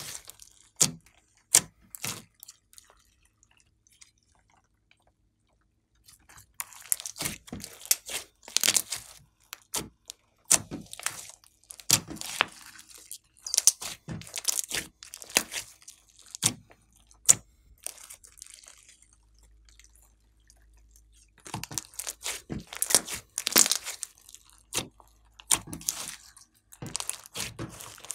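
Hands kneading and squeezing a large mass of glossy slime mixed with clay: wet squelches and sharp clicking pops of trapped air, in bursts. The sounds stop for a few seconds twice, near the start and about two-thirds of the way through.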